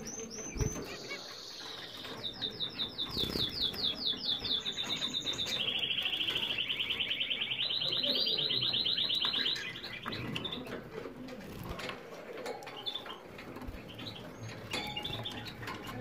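Canary song: long trilled rolls of fast repeated high notes, first in sliding groups, then a rapid steady trill that stops about nine and a half seconds in. Scattered soft flutters and clicks come from canaries bathing in a water dish.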